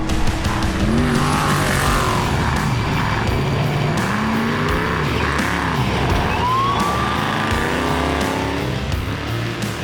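Off-road race truck engine revving up and down under rock music, with a long rising rev about six seconds in.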